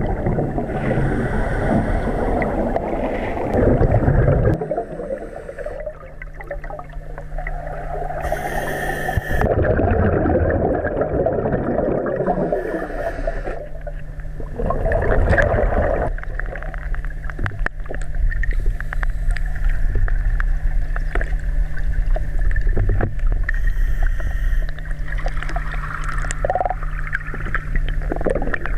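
Underwater sound of scuba breathing: rushes of exhaled regulator bubbles come every several seconds, with a brief high hiss around one inhalation. A steady low hum runs under it from about four seconds in.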